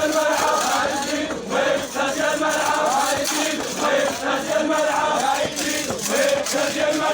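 A crowd of men chanting together in a tribal arada, many voices overlapping in a steady, continuous chant.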